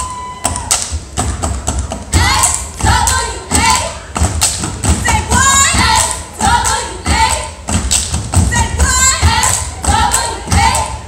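A step team stepping: stomps and hand claps struck in a quick uneven rhythm, with high voices shouting between the beats.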